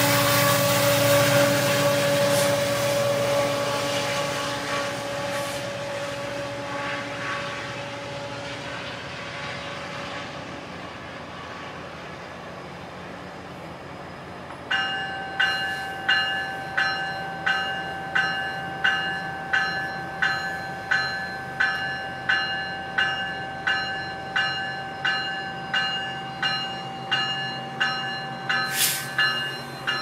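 A departing GO Transit diesel push-pull train's running noise fades away. About halfway through, a locomotive bell starts ringing steadily, a little over one strike per second, with a steady whine beneath it.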